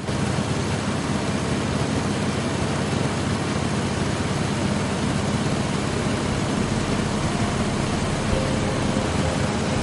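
Ultralight aircraft in flight, heard from an onboard camera: a steady engine drone under heavy wind noise.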